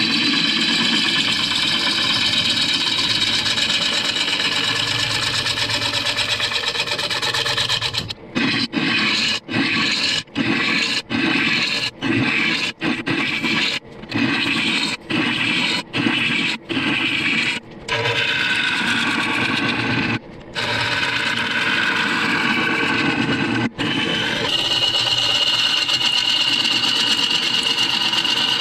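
Lathe gouge cutting into a spinning apple wood bowl blank, a continuous rough scraping of wood shavings with the lathe running. About eight seconds in, the cutting sound starts dropping out and coming back about once a second for ten seconds. Near the end a steady high tone rides over it.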